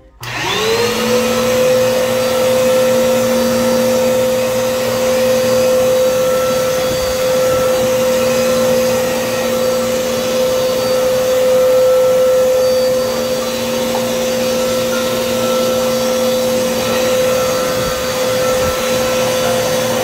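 A Dirt Devil Clean Path upright vacuum cleaner, fitted with a new drive belt, switched on: its motor spins up with a rising whine over about a second, then runs with a steady hum and whine.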